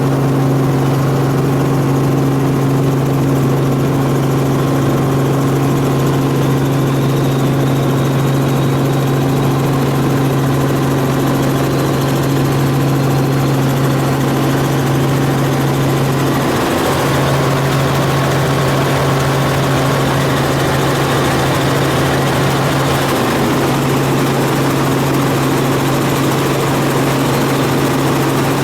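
Helicopter running, a loud, steady drone with an even low hum throughout.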